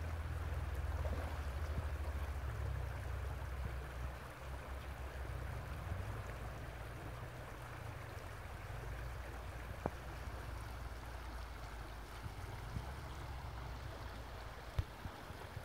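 Creek water running over a shallow riffle, a steady rushing hiss, under a low rumble that is heaviest in the first few seconds and eases off later. A single sharp tick about ten seconds in.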